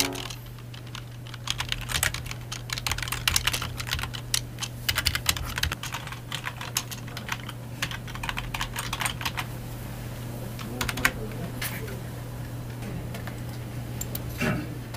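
Typing on a computer keyboard: quick, irregular key clicks that start about a second and a half in, come thick for several seconds, then thin out to a few scattered clicks near the end. A steady low hum runs underneath.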